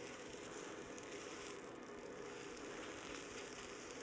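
Chaffle batter of cheese, egg and ground psyllium husks sizzling faintly on the hot plate of a Dash mini waffle maker as it is poured on, the hiss coming up as the batter meets the plate and then holding steady.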